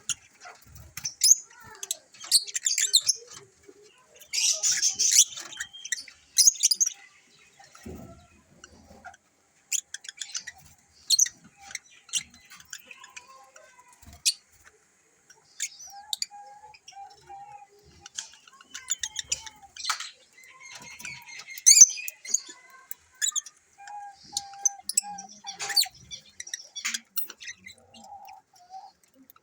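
African lovebirds chirping and chattering in a run of sharp, high-pitched calls, with a dense burst of rapid chatter about four seconds in.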